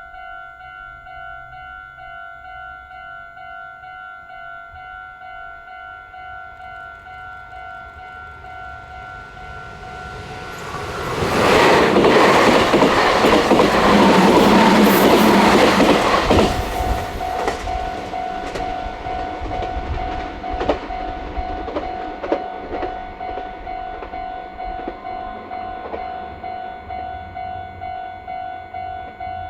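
Level-crossing warning bell ringing with an even, repeating electronic ding. About ten seconds in, a Meitetsu electric train passes loudly over the crossing for about six seconds. Its wheels then click over the rail joints and fade as it goes, while the bell keeps ringing.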